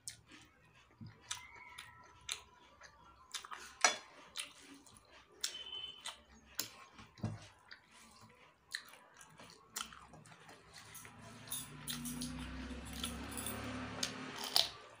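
Close-miked chewing and mouth sounds of a person eating rice and vegetables by hand: soft smacks, clicks and bites, with fingers working the food on the plate. A low steady hum comes in for the last few seconds.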